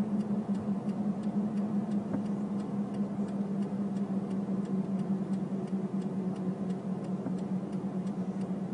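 Car's indicator flasher ticking steadily, about twice a second, over the steady hum of the engine and road heard inside the cabin.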